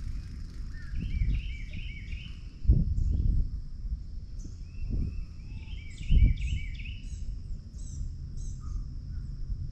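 A songbird singing two bouts of quick, repeated chirping phrases over a steady high insect drone, with low rumbling thumps about three and six seconds in.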